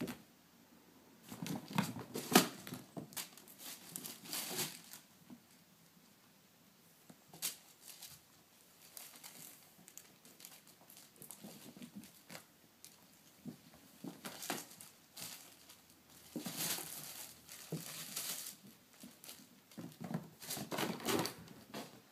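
Bedding fabric rustling and crinkling in irregular bursts as two kittens scramble and wrestle in a quilt and duvet, the loudest burst about two seconds in.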